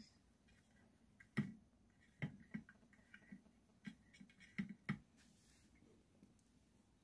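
Light handling clicks and knocks, about seven of them in the first five seconds, as parts and tools are worked on during a ceiling fan repair; then near quiet.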